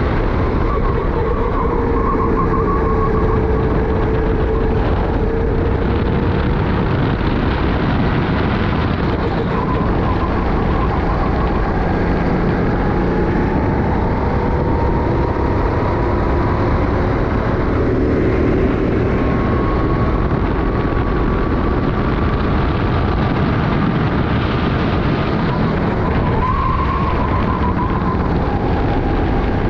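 Racing kart engine running hard with the driver riding along, its pitch rising and falling with the throttle and dipping briefly near the end as the kart slows for a corner. Heavy wind noise rushes over the microphone.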